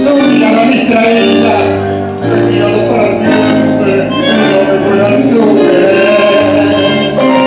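Live tango music: bandoneón and keyboard playing sustained chords, with a man singing into a microphone.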